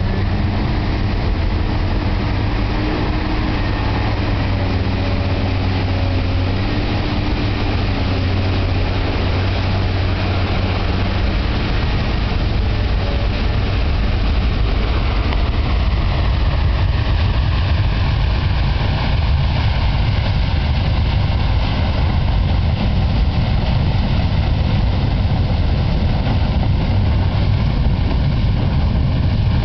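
A drilling rig's engines running steadily, then about ten seconds in a well blowout takes over: a steady, loud rushing roar of gas and drilling mud jetting out of the well through the derrick, growing a little louder as it goes on.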